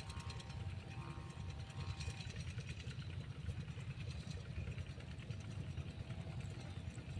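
Strong wind buffeting the microphone, an uneven low fluttering rumble, with a faint steady hum underneath.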